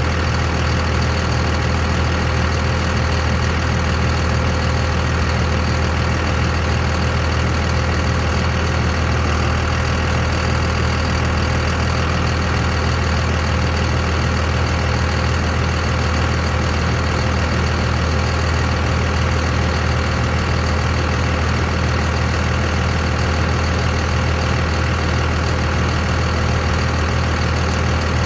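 Cummins 5.9-litre turbo-diesel inline-six in a 2001 Ram truck idling steadily, a deep even drone that doesn't change.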